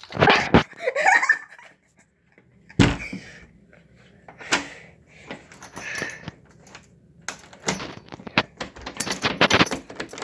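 A series of sharp knocks and bangs, with short bursts of laughter-like voice sounds in between and a quick run of knocks near the end.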